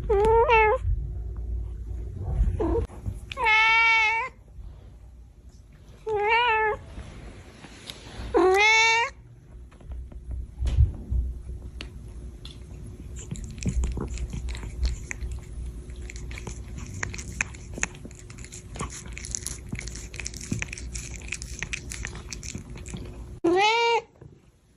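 A domestic cat meowing about five times: a group of calls in the first nine seconds, some long and bending in pitch, then one more near the end. In between, a long stretch of irregular crackling and clicking.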